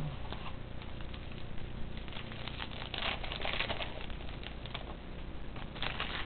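A foil hockey-card pack wrapper from 2009-10 Upper Deck Series 1 crinkling as it is torn open and handled, with the light rustle of trading cards. The crinkling is loudest about halfway through and again near the end.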